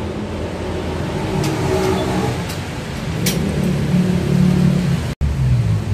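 A motor vehicle engine running, its pitch rising and falling as it revs, with the sound cutting out for an instant about five seconds in.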